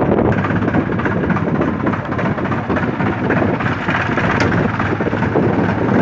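New Holland tractor's diesel engine running steadily as the tractor drives along towing a loaded trailer, with wind buffeting the microphone.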